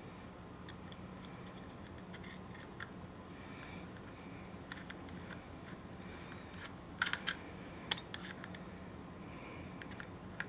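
Faint scattered clicks and scrapes of a small screwdriver turning a hard-drive mounting screw in a mini PC's metal bracket, with a quick cluster of louder clicks about seven seconds in.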